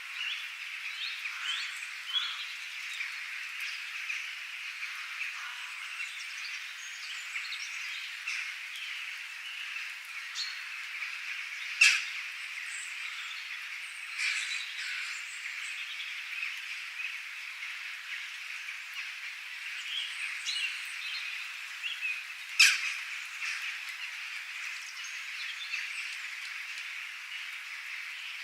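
Dense, steady chorus of birds and frogs calling, thick with overlapping chirps. Two sharp, loud clicks stand out about ten seconds apart.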